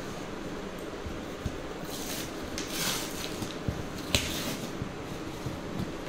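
Scissors blade pushed along the seam of a cardboard box, slitting the packing tape: two scraping, tearing rasps about two to three seconds in, small ticks of cardboard, and a sharp click a little after four seconds.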